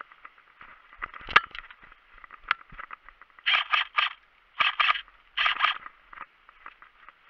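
Footsteps crunching through dry grass and fallen leaves, in quick clusters of two or three steps, after a single sharp click about a second and a half in.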